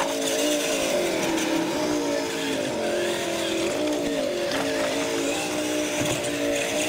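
Radio-controlled monster trucks racing on concrete, their motors whining with a pitch that rises and falls with the throttle, over the hiss of tires on the pavement.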